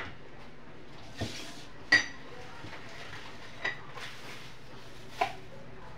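Four light clinks of kitchen dishes and utensils, spaced a second or two apart. Two of them, about two seconds in and near the middle, ring briefly like struck metal.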